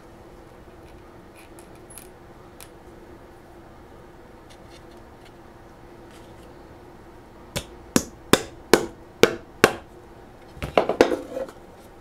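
Claw hammer driving a nail into a cedar fence-picket board: six sharp, quick blows, about two to three a second, starting some seven and a half seconds in, followed by a short clatter near the end.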